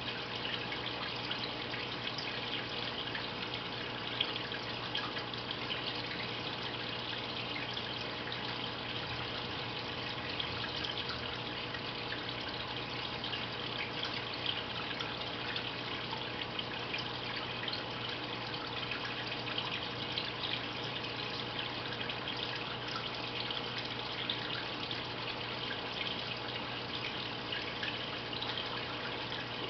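Aquarium filter water trickling and splashing steadily into the tank, with small drips and a low steady hum underneath.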